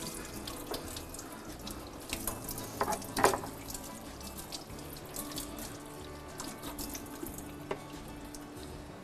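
Kitchen tap running into a sink as something is rinsed under it, with a few sharp clatters in the basin about three seconds in.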